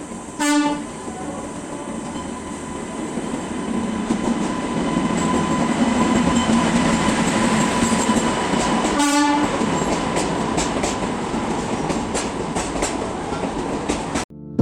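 Passenger train running with a steady rumble and rattle of the wheels on the track. The locomotive horn gives two short blasts, one right at the start and one about nine seconds later.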